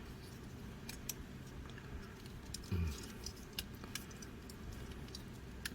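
Scattered light clicks and taps of a transforming robot figure's parts being handled and moved, with one louder dull thump a little before the middle.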